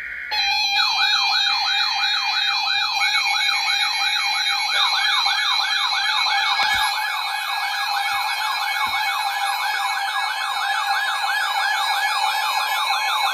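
An electronic warbling alert siren sounding for a severe thunderstorm warning, sweeping rapidly up and down about three times a second over a steady tone. It starts a moment in, as a short burst of steady data tones stops.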